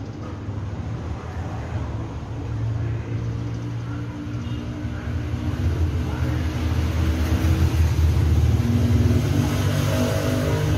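Low rumble of motor-vehicle engines from road traffic, steady and growing louder toward the end.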